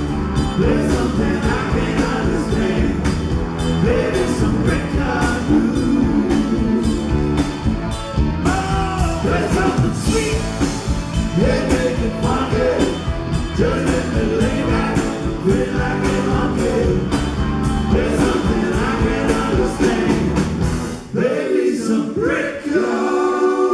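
Rock band playing live with a lead singer, drums, electric guitars and bass. About 21 seconds in, the drums and bass drop out, leaving higher, sustained instrument lines.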